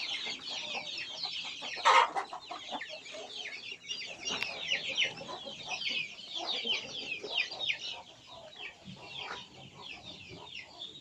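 Many young village chickens (ayam kampung) cheeping nonstop in short, high, falling chirps, thinning out near the end. A single sharp knock comes about two seconds in.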